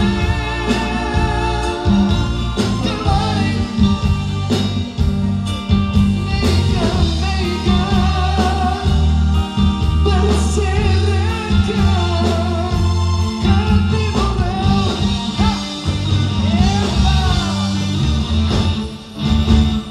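Live band performance over a PA: a woman singing a melody backed by electric guitar, keyboard and drums. Near the end the music drops away briefly.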